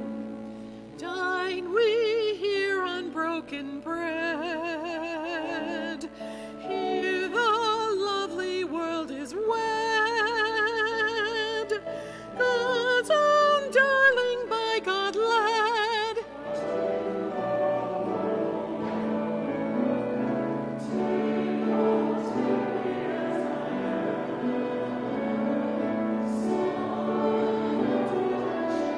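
Hymn music: a solo melody line with wide vibrato over keyboard accompaniment, which drops out a little past halfway, leaving the keyboard's held chords.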